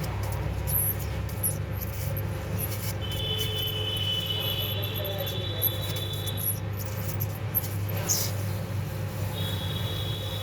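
SMD hot-air rework station running while it reflows solder on a phone's charging jack: a steady hum with air noise. A thin high tone comes in twice, for about three seconds from around three seconds in and again near the end.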